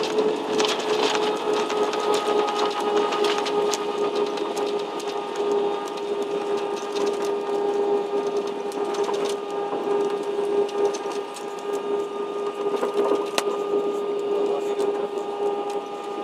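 Cabin noise of an Airbus A320-family jetliner rolling out on the runway after touchdown: a steady engine and airframe noise carrying a held hum, with scattered rattles and clicks from the cabin.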